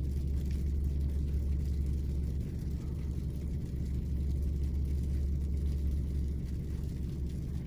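Steady low rumble of a car engine running at an even, unchanging pitch.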